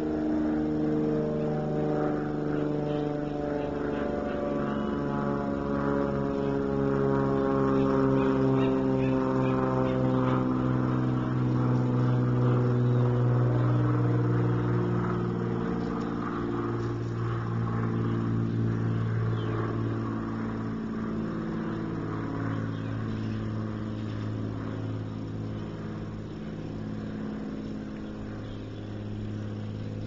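A motor's steady drone whose pitch falls slowly over the first twenty seconds or so and then holds. It grows louder towards the middle and fades gradually near the end.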